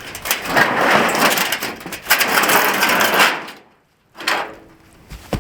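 Pieces of scrap tin and wood being shifted and dragged about in a scrap pile, rattling and scraping with many knocks, then a single sharp knock near the end as a piece drops onto a boot.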